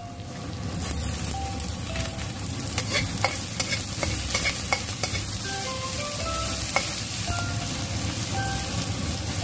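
Sliced onion, red chilli and red bell pepper sizzling in hot oil in a wok while being stir-fried, with a metal slotted spatula clicking and scraping against the wok.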